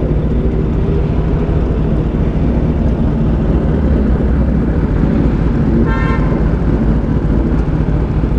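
A motorcycle being ridden at a steady pace: its engine runs steadily under a constant rush of road noise. A vehicle horn gives one short beep about six seconds in.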